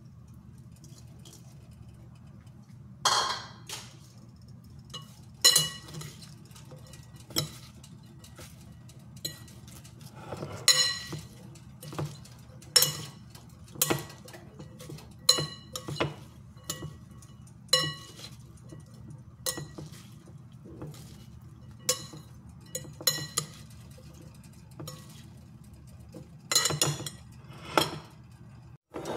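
Salad servers knocking and clinking against a glass mixing bowl as a salad is tossed. The knocks are irregular, every second or two, and some ring briefly like glass. A low steady hum runs underneath.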